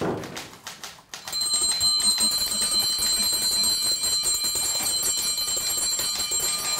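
Many small bells ringing together in a dense, high, jangling wash, starting about a second in after a brief lull and holding steady.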